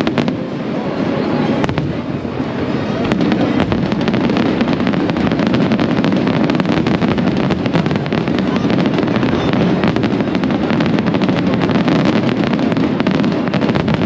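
Aerial fireworks going off in a dense, continuous barrage: rapid sharp cracks and pops over a steady rumble of many bursts overlapping.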